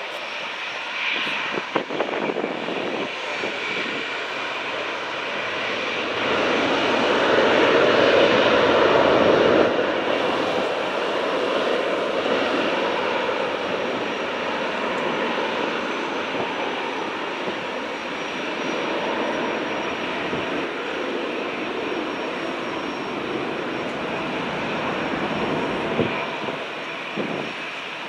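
Airbus A321-200 jet airliner taking off, its engines at takeoff thrust making a steady roar. The roar grows to its loudest about six to ten seconds in, then slowly fades.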